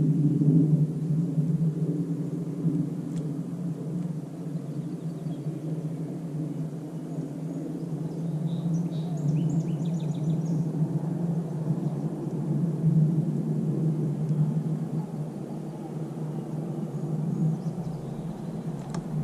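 Steady hum of a boat motor running, low and even throughout. A few faint bird chirps come through about nine to ten seconds in.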